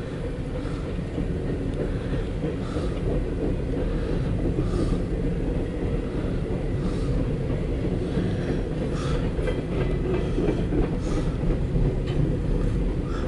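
Empty coal train's cars rolling past: a steady rumble and rattle with a regular click about once a second, heard from inside a car.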